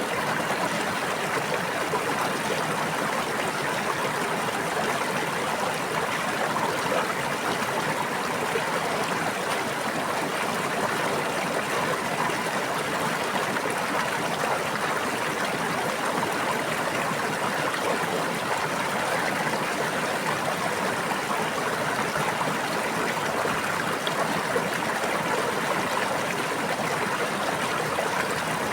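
Running water of a stream or brook, a steady babbling rush with no pauses.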